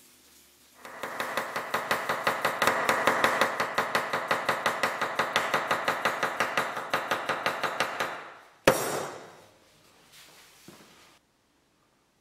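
A wide kitchen knife chopping a cucumber in quick, even strokes on an end-grain wooden cutting board, about six chops a second. The chopping stops near the end and is followed by one sharper, louder knock that rings briefly.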